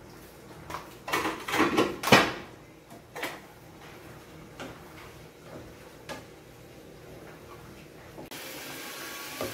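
Cookware clatter: a quick run of knocks and clinks from a bottle, lid and pot being handled about a second in, then a few light knocks of a wooden spoon stirring ground beef in an aluminium pot. Near the end a steady hiss of the meat cooking in the pot comes in.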